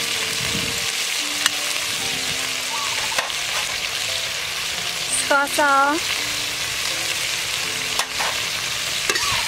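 Chopped quail frying in a hot wok, a steady sizzle with a few sharp pops. About five and a half seconds in, a short pitched call rises over the sizzle.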